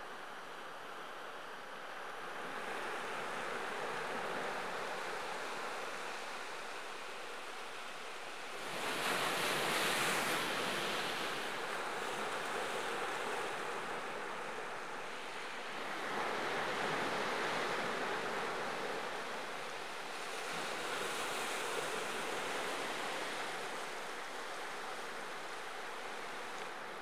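Ocean surf washing onto a sandy shore and rocks: a steady rush of breaking waves that swells and eases several times, loudest about nine seconds in.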